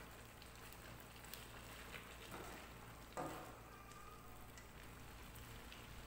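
Faint sizzling of vegetables and tempeh cooking in a wok, with soft scrapes of a silicone spatula stirring them; one slightly louder scrape about three seconds in.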